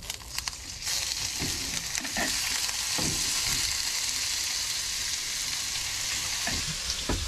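Marinated squid strips sizzling in hot oil as they are laid into a pan with metal tongs. The frying hiss starts at once, grows louder about a second in and then holds steady, with a few light clicks of the tongs against the pan and bowl.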